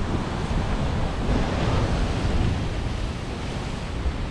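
Sea surf breaking and washing against a rocky cliff shore below, with wind buffeting the microphone in a steady low rumble.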